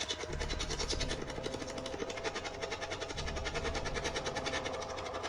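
Spirit box sweeping through radio stations: a fast, even chatter of choppy static bursts, many a second, with brief snatches of radio sound.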